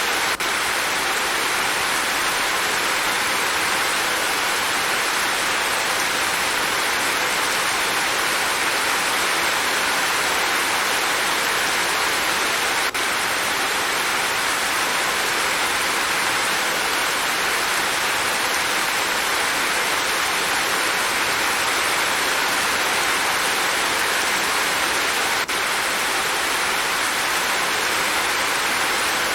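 Steady, even rain falling without let-up, a dense hiss with no single drops standing out.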